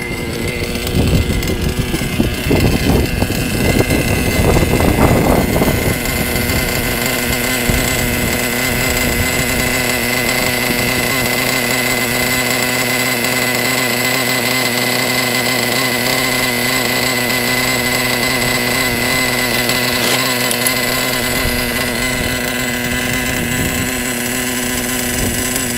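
Traxxas TRX 3.3 nitro RC engine idling steadily at a high pitch. Uneven low rumbling over the first six seconds, then a steady idle.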